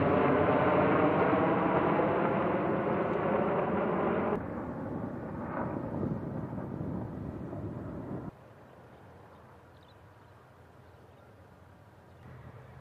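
C-130 Hercules transport plane's four turboprop engines droning overhead, a steady hum of many even tones, cut off abruptly about four seconds in. After that, a fainter rushing outdoor noise, which drops away again to a faint hush a few seconds later.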